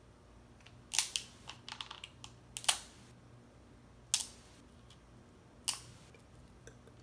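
Crab-leg shells being cracked with a metal hand crab cracker: a handful of sharp cracks a second or so apart, with smaller crackling clicks between the first few.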